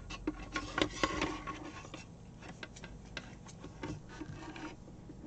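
Hands handling a red Ethernet cable and small plastic RJ45 connector parts on a wooden table: a dense run of small clicks and rustles in the first two seconds, then scattered light clicks.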